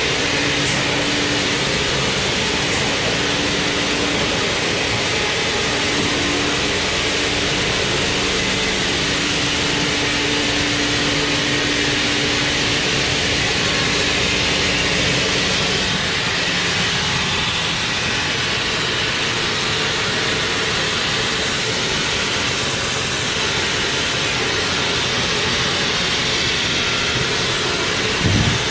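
Sawmill machinery running steadily: a loud, even mechanical noise with a low hum, and a brief low knock near the end.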